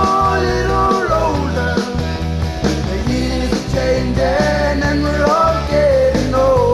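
A band playing a song: a voice sings a melody over steady bass notes and a drum beat.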